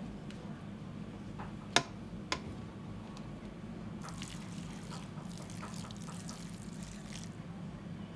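Kitchen work sounds: a steady low machine hum, two sharp knocks about half a second apart near the two-second mark, then about three seconds of fine crackling, trickling noise that stops fairly suddenly.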